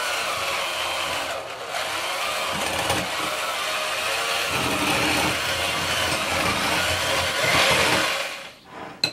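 Electric hand mixer running on low speed, its beaters churning through hot cooked chicken in a glass bowl and shredding it; the motor stops near the end.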